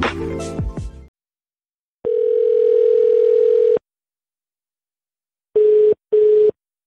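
The tail of an electronic intro tune fades out in the first second. Then come telephone call tones: one steady tone lasting nearly two seconds, and near the end two short beeps at the same pitch, as an outgoing call rings through.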